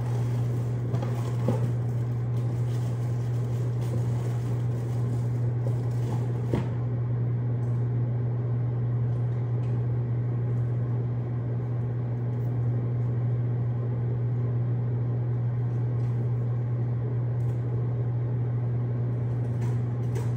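Microwave oven running with a steady low hum. A few light knocks, with one sharper click about six and a half seconds in.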